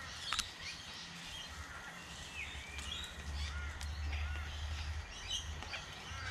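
Scattered short bird calls and chirps over a steady low rumble and a faint even hiss, with a sharp click about half a second in.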